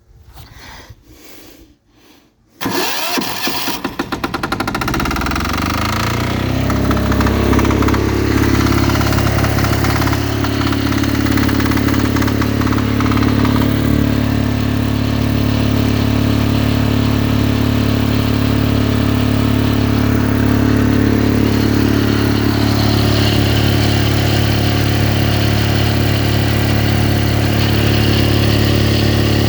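King Canada 5000W diesel generator catching and starting about two and a half seconds in, its engine speeding up over the next few seconds, then running steadily. It settles at too high a speed: the generator is running too fast, putting out about 140 V on the 120 V outlet.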